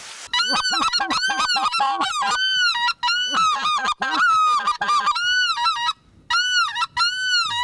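A flock of wild geese calling: many short calls that rise and fall in pitch, overlapping one another, with a few brief pauses near the end.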